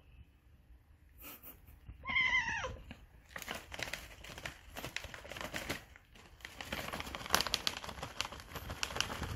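A cat gives one short meow falling in pitch about two seconds in. Then a treat pouch is crinkled and rustled for the rest of the time, crackling with many sharp clicks.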